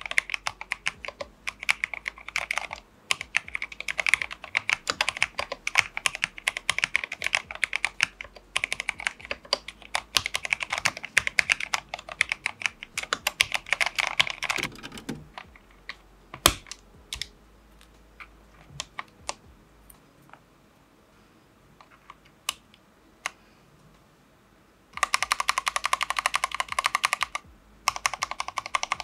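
Mechanical keyboard being typed on quickly for a sound test. Rapid keystrokes run for about fifteen seconds, then only scattered single key presses. About 25 seconds in, fast typing starts again with a lower-pitched clack.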